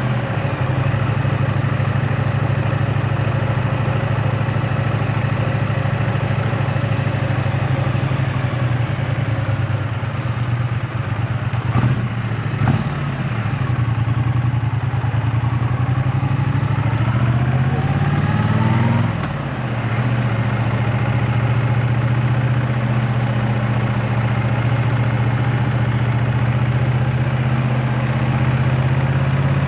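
2024 Triumph Bonneville T100's 900 cc parallel-twin engine running while riding, in a steady note. The revs dip and pick back up about twelve seconds in. Near nineteen seconds they climb, then fall away briefly.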